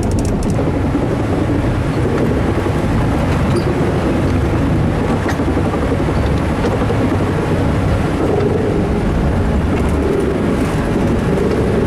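Cog railway train climbing Mount Washington, its cog wheel engaging the Marsh rack rail in a steady, loud rumble.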